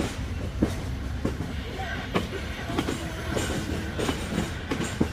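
Amtrak passenger cars rolling past on the track below, their wheels clicking irregularly over the rail joints over a steady low rumble.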